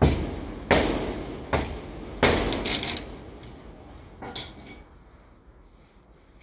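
Hammer blows on metal: four sharp strikes roughly three-quarters of a second apart, each ringing out briefly, then a fainter fifth strike about four seconds in.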